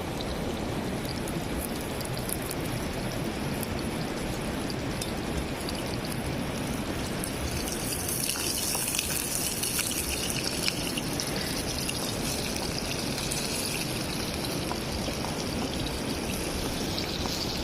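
River water flowing steadily: a constant rushing hiss, brighter from about halfway through.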